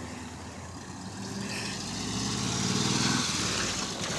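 A car driving past on a paved road: its engine and tyre noise swell to a peak about three seconds in, then fade.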